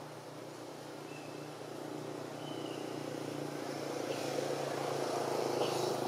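A distant engine droning steadily, growing louder toward the end, with a few short high chirps over it.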